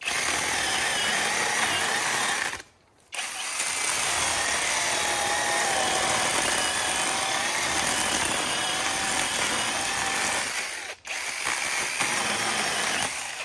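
SeeSii 12-inch 21 V cordless battery chainsaw running, its chain cutting through a dry dead spruce log. It stops for half a second about two and a half seconds in, stops again for a moment near the end, then runs on until just before the end.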